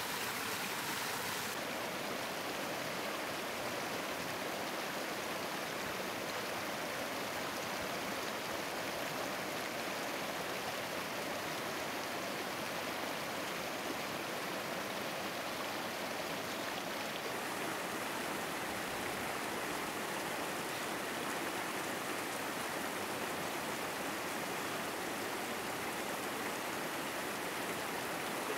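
Steady rushing of flowing water, an even hiss without pauses or strokes.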